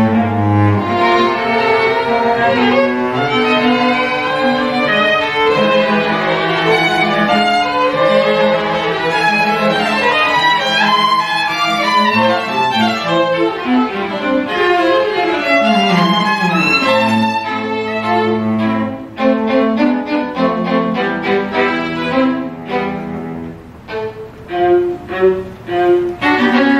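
String quartet (two violins, viola and cello) playing live, with sustained bowed notes and gliding pitches. About two-thirds of the way through it breaks into short, detached repeated strokes.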